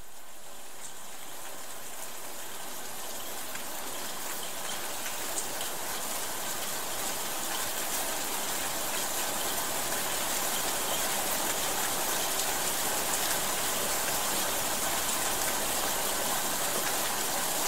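Steady rain falling on leafy vegetation: a dense, even hiss with the odd sharper drop, slowly growing louder.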